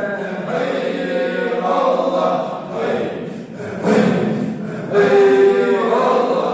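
A small group of men chanting Islamic dhikr together, sung voices rising and falling in a continuous chant, with a long held note about five seconds in.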